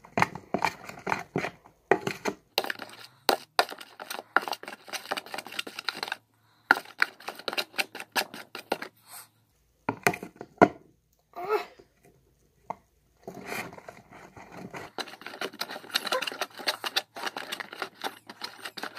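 A spoon stirring glue and slime activator into slime in a clear plastic tub: irregular scraping and clicking against the tub, with a few short pauses.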